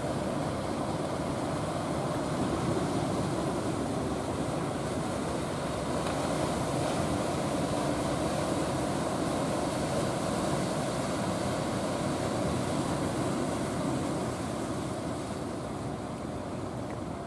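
Engine of a wooden fishing boat running steadily as it motors past, mixed with surf and rushing water. It eases slightly near the end.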